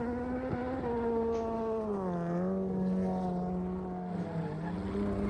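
Rally car engine held at steady high revs while spinning donuts, with a slight dip in pitch about two seconds in.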